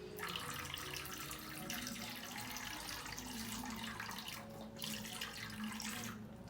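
Milk being poured into a bowl holding a cracked egg: a steady splashing pour, with a brief break about four and a half seconds in.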